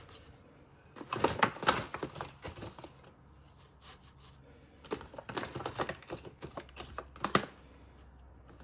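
Handfuls of rocket (arugula) leaves dropped and pressed into a stainless-steel food-processor bowl: crisp rustling and crackling in two bursts, about a second in and again around five seconds in.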